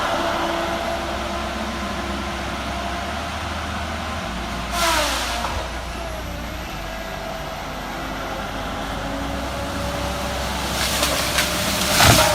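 A heavy machine's diesel engine runs steadily. About five seconds in there is a loud burst of noise that falls in pitch, and a second loud burst comes near the end.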